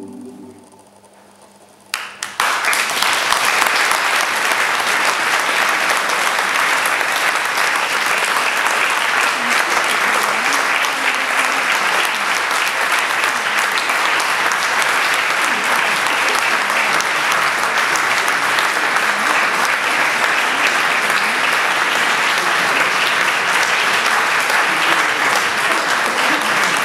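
The final sung chord of a mixed choir dies away, and about two seconds in an audience bursts into applause, clapping steadily and densely from then on.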